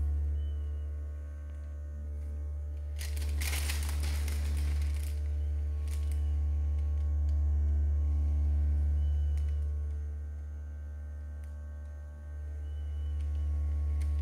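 Portable mini heat press humming steadily while held pressed onto an iron-on transfer. A short rustle of parchment paper comes about three seconds in.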